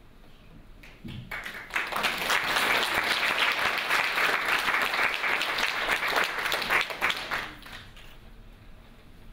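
Audience applauding. The clapping starts about a second in, builds quickly, and dies away about six seconds later.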